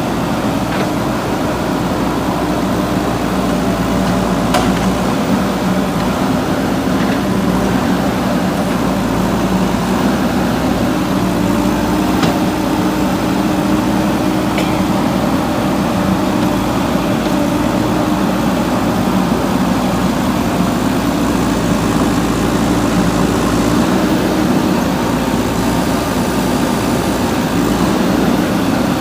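Diesel engine of a JCB 3DX backhoe loader running steadily, with a few faint ticks over it.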